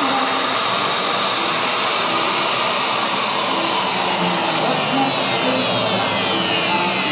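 CNC router spindle and its dust collection running steadily as a V-bit carves a pine panel. A high whine falls slowly in pitch over the second half.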